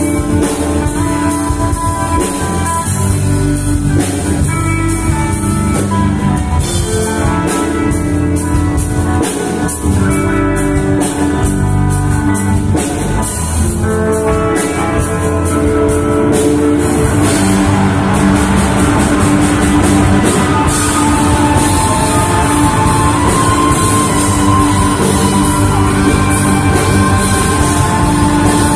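Live rock band playing loud electric guitars over a drum kit. The beat is sharp and rhythmic at first; a little past halfway the sound thickens into a dense, continuous wash of guitar.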